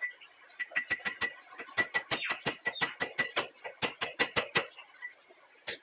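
Rapid series of hammer taps on metal with a ringing note, about five a second, driving a new CVT bearing into its seat; the tapping stops about four and a half seconds in, with one last tap near the end.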